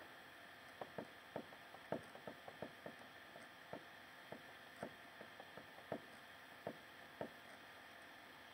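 A run of about twenty light, irregular clicks or taps, starting about a second in and ending near the end, over a faint steady hum.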